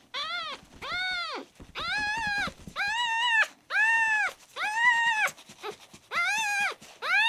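A ten-day-old kitten crying loudly and repeatedly while held, about eight high mews in a row, each rising and then falling in pitch.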